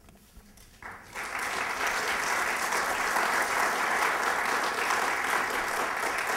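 Audience applauding: a short quiet pause, then clapping starts about a second in and keeps on steadily.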